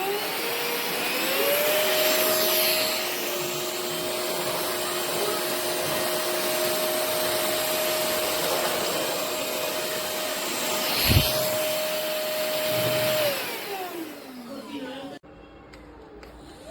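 VersLife S6PRO cordless stick vacuum motor spinning up, then running steadily with a high whine over rushing air, with a single sharp knock about eleven seconds in. The motor then winds down with falling pitch and stops about fifteen seconds in, and starts spinning up again at the very end.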